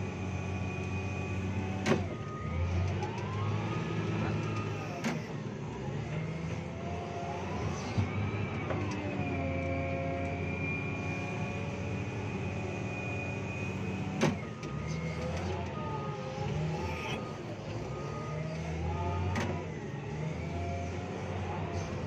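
Caterpillar 950G wheel loader's diesel engine working under load in the cab, its pitch rising and falling as it pushes coal, with a high whine that dips and returns. Five sharp knocks are spread through it.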